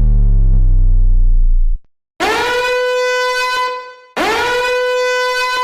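A very low, loud buzzing tone that cuts off near the two-second mark, then the same horn-like note played twice, each sliding up into pitch and held for a second or two.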